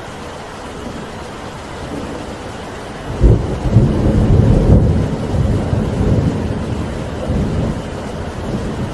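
Steady rain, then a sudden loud clap of thunder about three seconds in that rolls on as a long, deep rumble.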